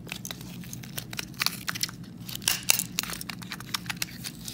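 Flat-blade screwdriver prying a circuit board out of a weathered plastic shock-collar case: irregular clicks, cracks and scrapes of metal against plastic, with a few sharper cracks in the middle.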